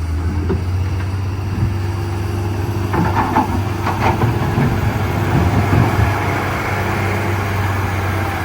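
Heavy wheel loader's diesel engine running with a steady low hum, with a few short knocks and clatters about three to four seconds in.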